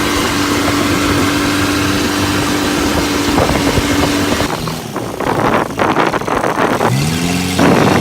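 Motorboat engine running under a rush of wind and water, steady at first and then more uneven, revving up with a rising pitch about seven seconds in.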